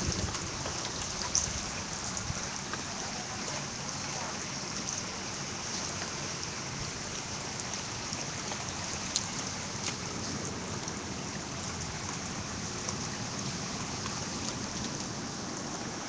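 Steady rain falling, an even hiss of water with a few faint clicks, heard through a phone's microphone.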